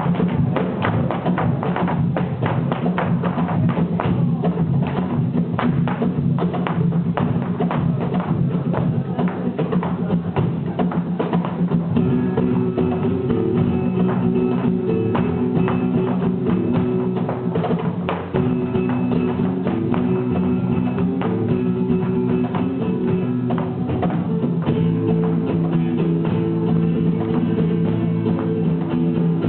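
Live flamenco music, loud throughout. The first part is packed with rapid percussive tapping; about twelve seconds in, held pitched notes come in over it and the tapping thins out.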